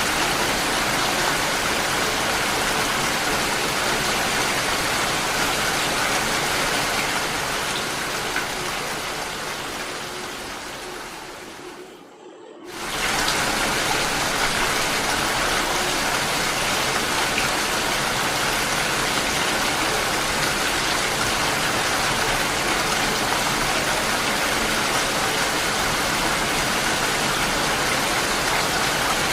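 Steady heavy rainfall, an even hiss of water. About halfway through it fades away over several seconds, drops out for under a second, then swells back and carries on as before.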